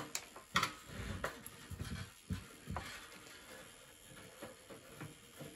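Light clicks and knocks of a screwdriver working the screws of a toaster's rubber feet, with small parts set down on a workbench. A few sharp taps come in the first three seconds, then it goes quieter.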